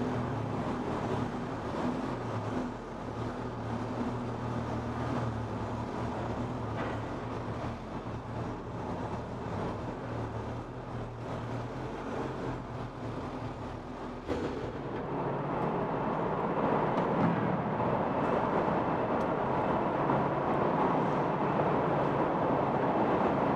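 Motorcycle engine running slowly at low revs, a steady low hum, as the bike rolls onto a ferry's car deck. About fourteen seconds in the engine note drops away and a louder, even rushing noise takes over.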